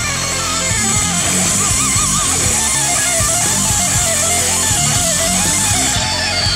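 Rock background music with electric guitar. Under it, an angle grinder cuts a concrete block with a high hiss that stops about six seconds in, then the disc winds down with a falling whine.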